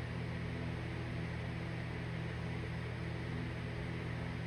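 Steady low hum with an even hiss over it, unchanging throughout; background room noise with no distinct event.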